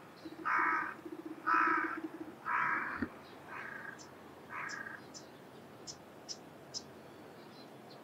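Crow cawing five times, about once a second, the first three calls loud and the last two fainter, with short high chirps of small birds after them.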